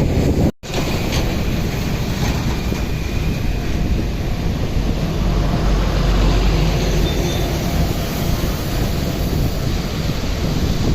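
A steady low rumbling noise that cuts out briefly about half a second in.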